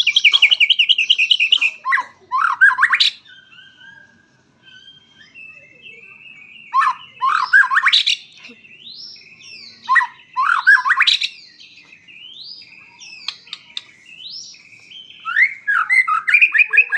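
White-rumped shama (murai batu) in full, vigorous song: a fast rattling trill, then loud rising sweeping phrases repeated three times, with thinner whistled notes between them and another trill near the end.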